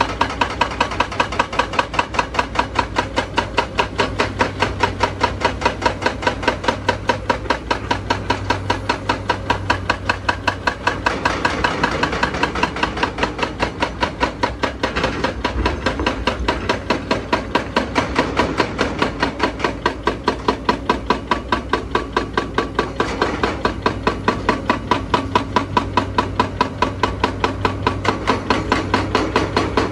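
Excavator-mounted hydraulic breaker hammering rock in a fast, even run of blows, several a second, without a break. Under it runs the steady sound of the excavator's diesel engine.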